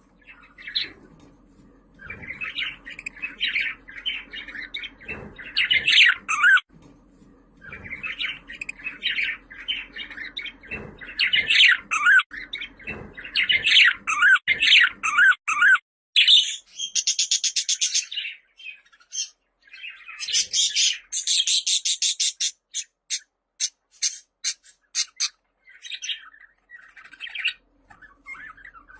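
Budgerigar warbling and chattering in quick, varied chirps. About halfway through come runs of fast, buzzy clicking, then scattered chirps toward the end.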